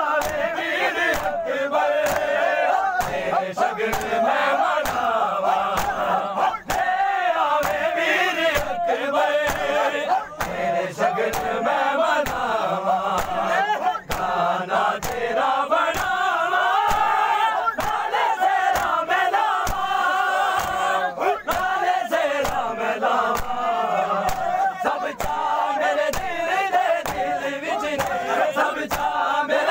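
A group of men chanting a noha lament in unison, with a steady beat of sharp hand slaps on the chest (matam) keeping time, about one to two a second.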